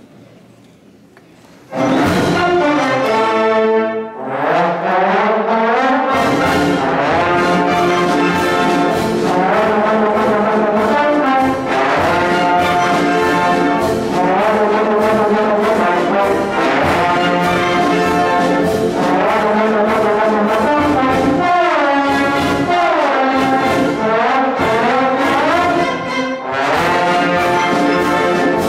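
Trombone section backed by a concert band playing, coming in loud about two seconds in, with slide glissandos that swoop down and back up near the start and again toward the end.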